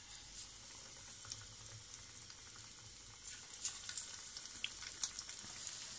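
Cornflour-and-egg-coated chicken pieces sizzling in hot oil over medium heat. The crackling grows busier about halfway through.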